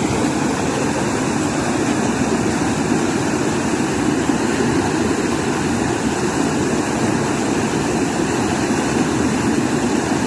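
Floodwater rushing, a loud steady noise with no breaks.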